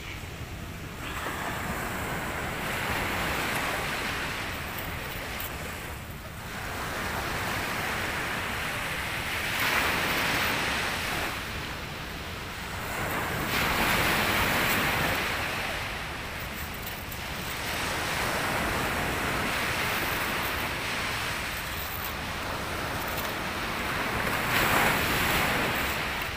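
Sea surf breaking and washing up a sand beach, the rush swelling and fading every few seconds, with wind buffeting the microphone.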